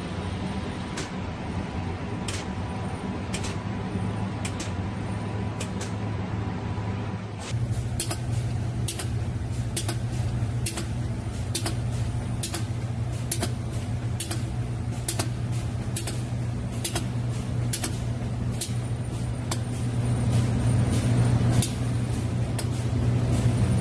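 Automated spray-coating rig, an FSCC06 micro spray gun on a gun mover, running. A steady mechanical hum carries sharp clicks at about one to two a second. The sound shifts and gets louder about seven seconds in.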